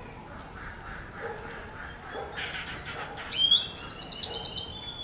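A bird's high-pitched call about three seconds in: a rapid trill that ends in a held note.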